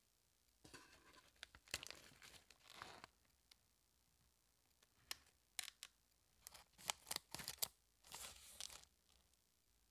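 Plastic snack bags of fried rice crackers crinkling and crackling as they are handled, then a bag torn open with a short rip near the end.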